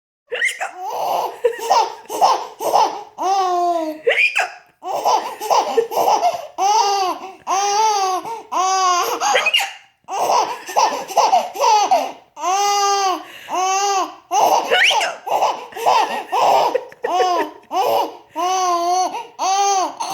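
A young child laughing hard in long bouts of high-pitched, rapid laugh notes, each note rising and falling in pitch, with short pauses for breath between bouts.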